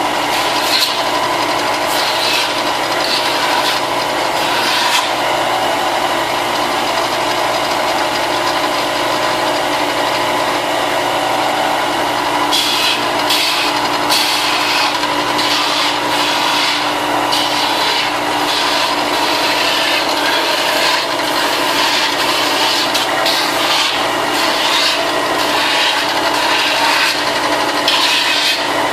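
Electric sander running steadily while it grinds down the edges of cut-out armor pieces, the scraping getting harsher each time the piece is pressed against it.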